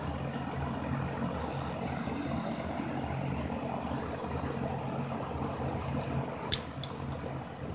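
Steady low background hum, with a sharp click of metal parts about six and a half seconds in and two fainter clicks just after, as the union fitting on an aluminium AC line is handled by hand.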